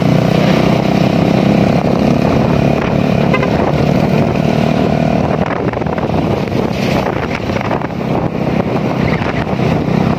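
Motorcycle engine running on the move, heard through a helmet-mounted phone with wind rushing over the microphone. The engine's steady hum is clear at first and blurs into wind noise about halfway through.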